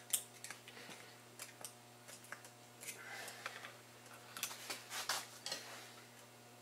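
Scattered light clicks and taps of small metal parts being handled: a screwdriver working at the snap clip in the brass head of a carbonator pump, then the pump body being turned over in the hands, with a few firmer taps about five seconds in.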